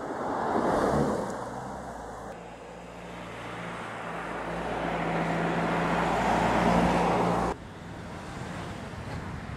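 2016 Mercedes-Benz E-Class sedan driving past close by, its engine and tyre noise swelling to a peak about a second in. Then the car's steady engine hum and road noise build up as it draws near, and cut off abruptly near the end, leaving softer wind noise on the microphone.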